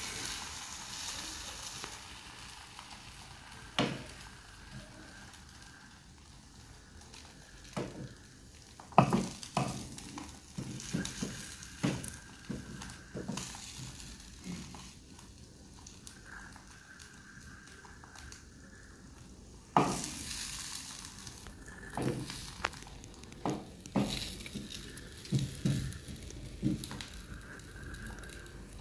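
Eggs frying in hot oil in a pan, a light steady sizzle, with a utensil scraping and knocking against the pan now and then as the eggs are stirred; the two loudest knocks come about nine and twenty seconds in.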